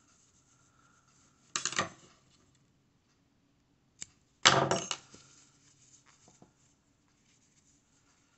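Small metal scissors clinking and snipping off yarn tails: a short clatter about a second and a half in, then a sharp click and a louder clatter about halfway through, followed by a few light ticks.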